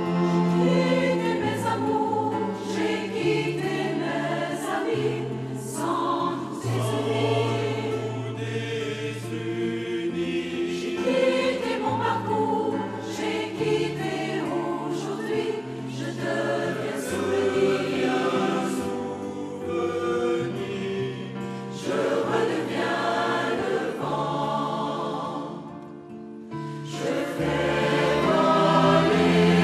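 Mixed choir of men's and women's voices singing with instrumental accompaniment. The music thins to a brief quieter moment about 26 seconds in, then the full choir swells back louder.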